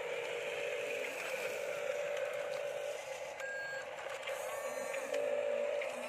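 Radio-controlled toy construction machines running with a steady electric motor and gearbox whine, with a few short electronic beeps over it past the middle.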